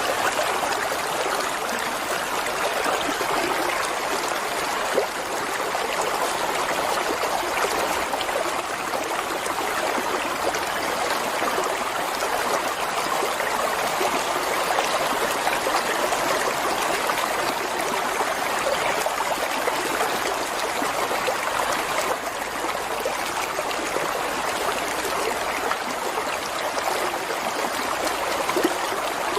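Flowing water running steadily, with a trickling sound like a stream, unbroken throughout.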